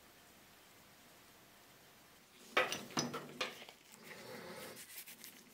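Near silence for about two seconds, then a few sharp clicks and knocks as a metal compass-cutter part is handled against a plastic tub of liquid, followed by softer rubbing noise.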